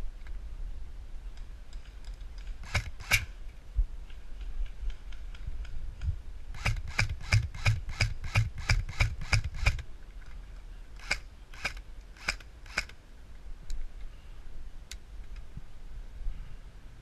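Airsoft electric rifle (AEG) firing semi-automatic shots: a pair of sharp snaps, then a quick string of about a dozen at three or four a second, then four more.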